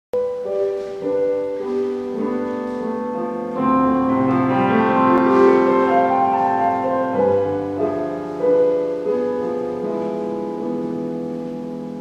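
Grand piano playing an introduction of sustained notes and chords, growing fuller a few seconds in, then ringing out and fading toward the end.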